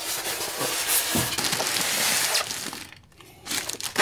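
Cardboard box and packing material rustling and scraping as they are pulled apart by hand, with a short lull about three seconds in.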